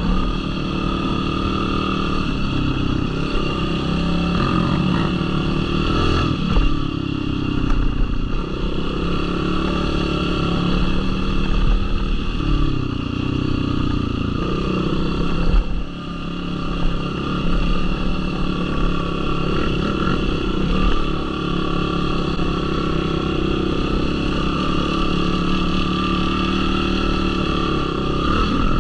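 Yamaha YFZ450R sport quad's single-cylinder four-stroke engine running under way, its pitch rising and falling with the throttle, with a few sharp knocks from the machine over rough ground.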